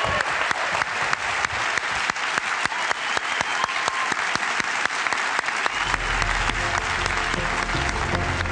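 A large audience applauding steadily after a talk. About six seconds in, music comes in underneath the clapping.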